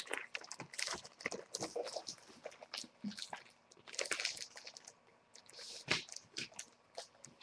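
Sheets of scrapbooking paper being handled and sorted: irregular rustling and crinkling with many short crackles and small taps.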